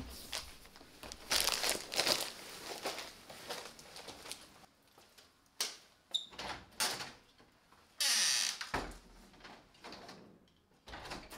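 Sheets of paper rustling as they are handled, then a door handle clicking and a door opening and closing. There is a short loud rush about eight seconds in and a few clicks near the end.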